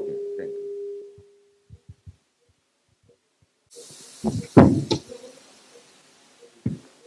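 Microphone handling noise: a low steady hum fades out within the first second, then about four seconds in a hiss comes up with a cluster of dull thumps, and a single knock comes near the end.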